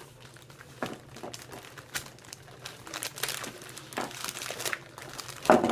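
Clear plastic zip-lock bag and paper packets crinkling as they are handled, in irregular rustles, with a louder crackle near the end.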